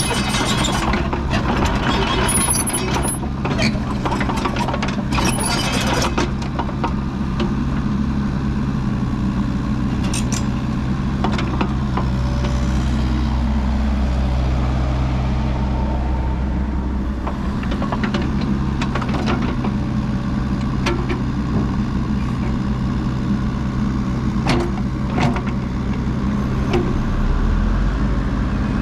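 Kubota KX155-3SZ midi excavator's diesel engine running steadily. Clanks and knocks come thick in the first six seconds and scattered after.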